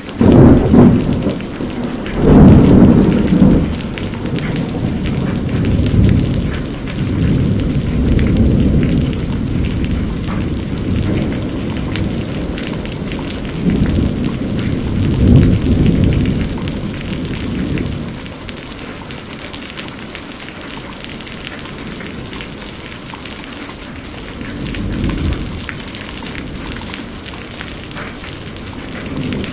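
Steady heavy rain with repeated rolls of thunder, the loudest near the start and about fifteen seconds in. Past the midpoint the thunder eases, leaving mostly rain with one softer rumble.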